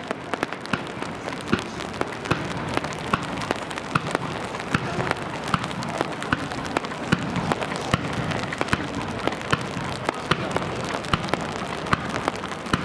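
Rain falling on an umbrella held over the camera: a steady hiss with many irregular sharp drop taps on the canopy.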